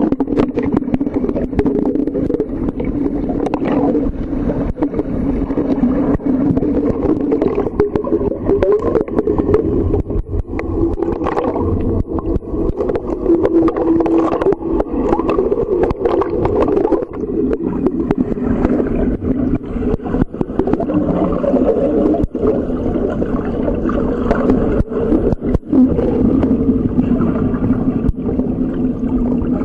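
Muffled underwater pool ambience picked up by a submerged camera: a steady, loud low drone with a wavering pitch and scattered clicks.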